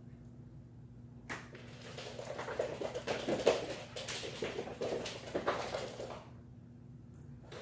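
Dogs playing on a leather couch: a knock about a second in, then about four seconds of busy scuffling and scrabbling with dog noises mixed in, which stops near the end.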